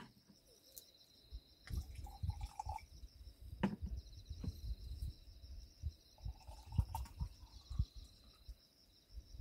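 Drink being poured from a bottle into a glass, gurgling briefly about two seconds in and again around six to seven seconds, the second pour from a green glass soju bottle into beer. Dull bumps and clicks of bottles and glass handled on the table, over a steady chirring of insects.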